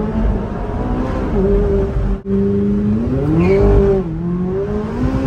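High-performance car engine running hard under acceleration, its pitch holding, then climbing and dropping again as through a gear change. The sound breaks off for an instant about two seconds in.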